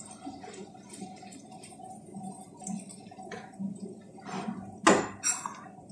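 Wooden spoon stirring freshly drained rice in a frying pan: soft scraping and wet squishing, with a sharp knock about five seconds in.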